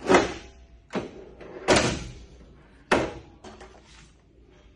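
Manual guillotine paper cutter in use: the lever is brought down to cut a stack of paper, and the acrylic safety cover is then lifted. The cut makes a run of four sharp metal clunks and knocks, about a second apart, with a smaller click after them.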